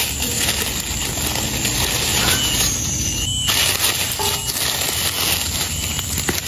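Dry fallen leaves crackling and rustling as a hand brushes and sweeps them aside on the forest floor.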